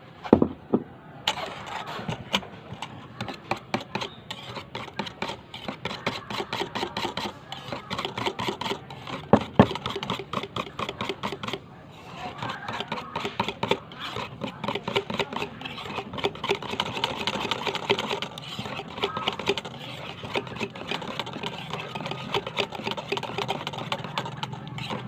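Wire whisk beating a thick cream cheese mixture in a stainless steel bowl: a rapid, steady clatter of the wires against the metal. It breaks off briefly about halfway through, and there are a couple of sharper knocks.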